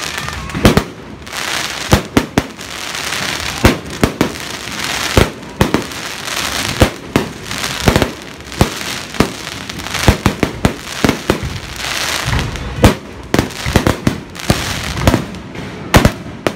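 Aerial fireworks going off in quick succession: dozens of sharp bangs at irregular intervals, sometimes several a second, over a steady hissing crackle of bursting stars.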